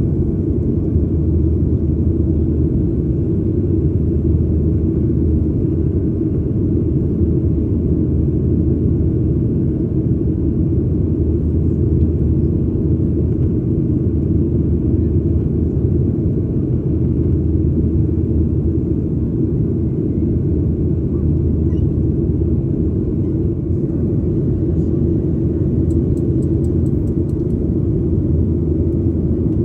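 Steady, low-pitched cabin noise of a Boeing 737-800 in its climb after takeoff: the two CFM56-7B24 engines and airflow heard from a window seat near the wing.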